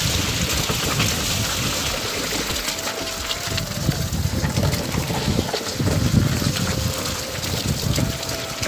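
Rushing noise of a vehicle moving along a wet, muddy road: wind buffeting the microphone and tyres on wet mud, with the engine running underneath.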